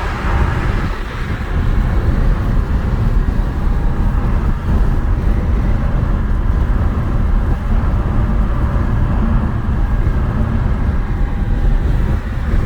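Steady low rumble of a moving road vehicle's engine and tyre noise, heard from inside the cabin.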